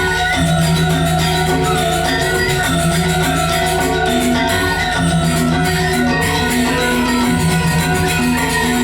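Balinese gamelan playing dance music: bronze metallophones strike quick repeated mallet notes over steady held low tones.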